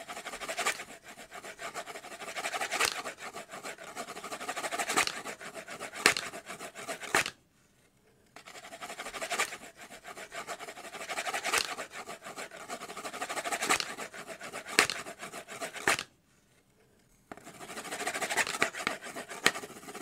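Aboriginal clapping boomerangs played as percussion, the two wooden boomerangs clicked and scraped together in a rapid rattle with louder strikes every second or two. The playing comes in three stretches, broken by two short pauses about a third of the way in and again near the end.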